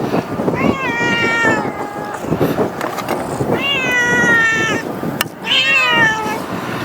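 Kittens meowing three times: two long, high-pitched calls and a shorter one near the end.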